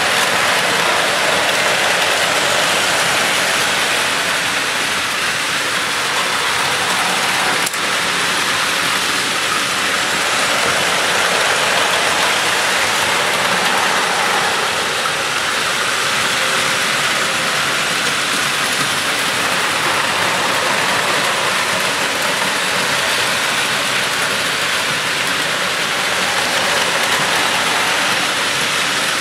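Many Plarail battery-powered toy trains running at once on plastic spiral track: a dense, steady whirring and rattling of small motors and wheels.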